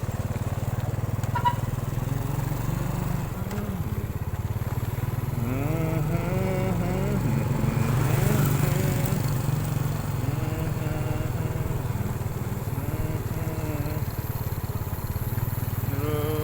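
A motorcycle engine running steadily with a low, even hum, with people's voices heard over it from about five seconds in.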